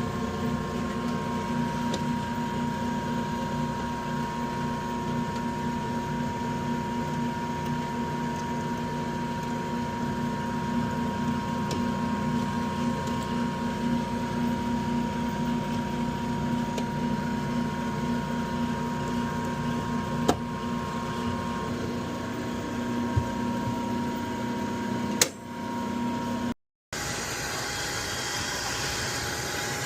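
Steady machine hum with a few steady tones, typical of a running motor. Two sharp clicks come late on, then the sound drops out briefly and cuts to a different steady running noise near the end.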